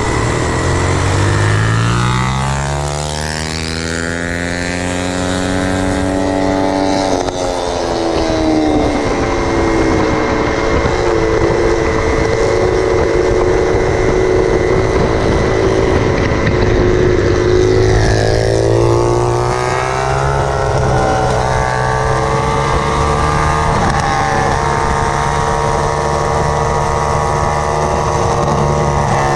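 A 50cc two-stroke Yamaha scooter engine revving up. Its pitch climbs over the first several seconds and drops sharply about seven seconds in. It runs steady, then climbs again a little after halfway and holds at the higher pitch.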